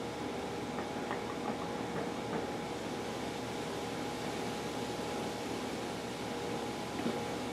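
Steady background hiss with an even mechanical hum and a few faint clicks.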